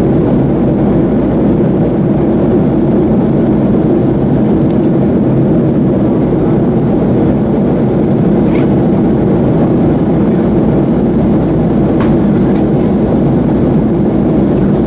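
Steady cabin noise inside a Boeing 737-300 in flight: the low drone of its CFM56 jet engines and airflow over the fuselage, unchanging throughout.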